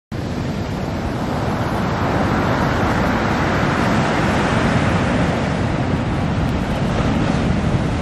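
Black Sea surf washing steadily onto the shore, with wind on the microphone.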